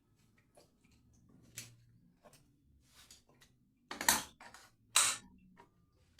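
Scattered sharp clicks and knocks of objects being handled, the two loudest about four and five seconds in.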